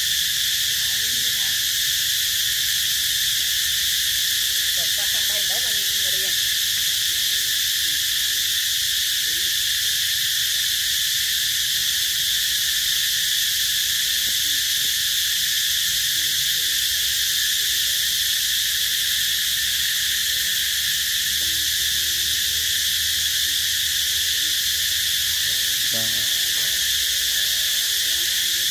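Steady, high-pitched insect chorus, a dense unbroken drone.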